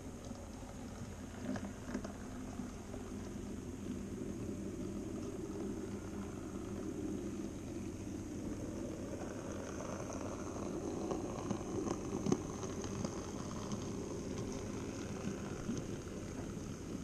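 N-scale model freight train running along the track toward the camera: a steady rumble of wheels on the rails with small clicks at the rail joints and a faint high motor whine, growing louder as the train comes close.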